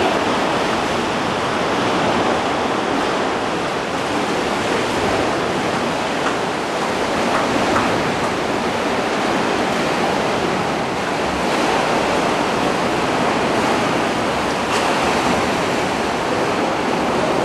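Sea waves surging and washing through the rock channels of a sea cave, a steady rushing of water.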